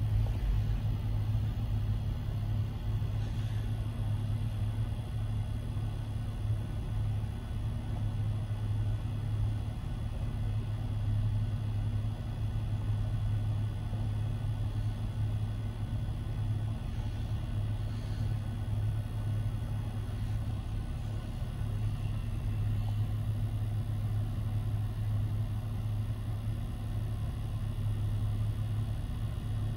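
Long Union Pacific autorack freight train rolling past a grade crossing, a steady low rumble heard from inside a car's cabin.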